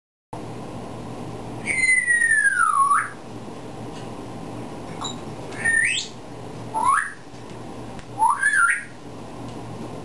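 African grey parrot giving attention-getting whistles. A long whistle falls in pitch and then sweeps back up, about two seconds in, and is followed by three short rising whistles over the next few seconds.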